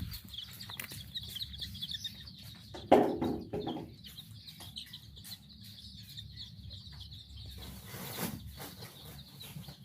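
A flock of chickens in a poultry shed, with a steady high chorus of peeping and clucking. One loud call stands out about three seconds in, and a shorter one comes near the end.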